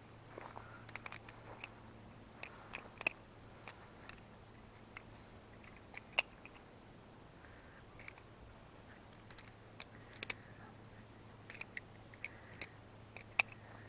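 Butterfly knife with aluminium channel handles being flipped through tricks: irregular sharp metallic clicks and clacks as the handles swing around and knock shut, with a few louder snaps among them. A faint steady low hum runs underneath.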